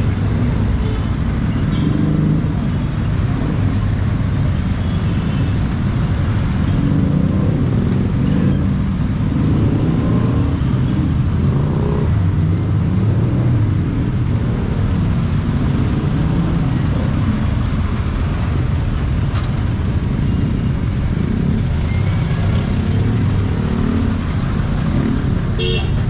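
Steady busy-street traffic noise: motor vehicles running close by, with a constant low rumble.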